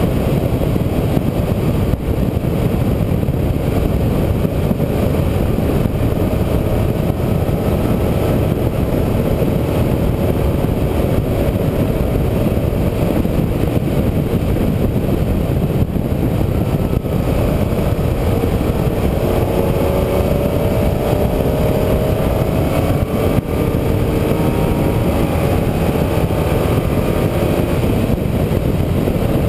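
Sound recorded on board a motor vehicle while it is driven: a steady, loud low rumble of engine, road and wind noise. From about two-thirds of the way through, an engine note climbs in pitch, as under acceleration.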